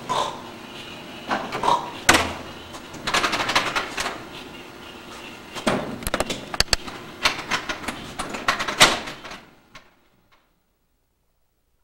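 Doors being handled: latch clicks, knocks and shuffling in several short bursts. The sound cuts off suddenly about ten seconds in.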